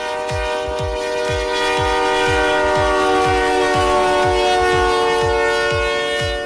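Diesel locomotive's multi-chime air horn held in one long blast, its pitch dropping slightly about four seconds in. Under it runs a steady electronic music beat.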